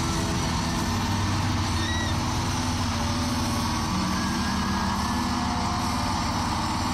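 Large stadium crowd cheering and screaming in one continuous roar, with low held notes from the sound system underneath and a brief high whistle about two seconds in.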